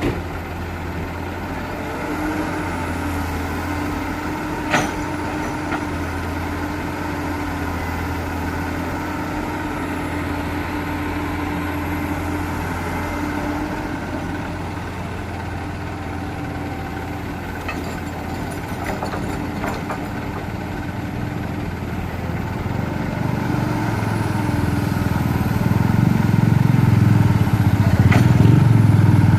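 Heavy earthmoving machinery's diesel engine running steadily, with a single sharp metallic knock about five seconds in and a few faint clanks later. The engine grows louder and deeper over the last several seconds, as if under load.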